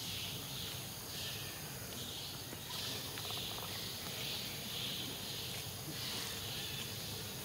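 Insects buzzing in a steady chorus, a hissing buzz that swells and fades in a regular beat about every two-thirds of a second.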